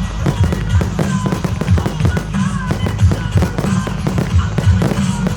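Rapid, overlapping firework shots and bursts fired in quick succession, mixed with a music soundtrack that has a heavy, pulsing beat.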